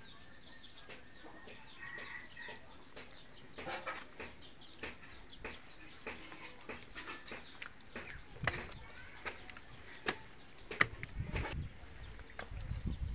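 Chickens clucking, with scattered sharp clicks and a few low thumps near the end.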